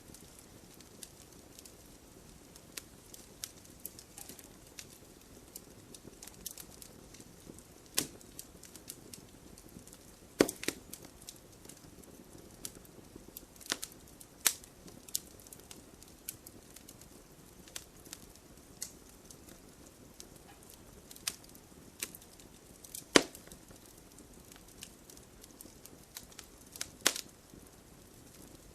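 Wood fire burning, crackling with irregular sharp pops over a soft hiss, a handful of pops louder than the rest.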